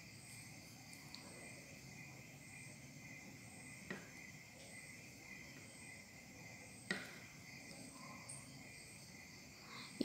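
Near silence: a faint, steady, high-pitched chirring in the background, with two soft clicks about four and seven seconds in.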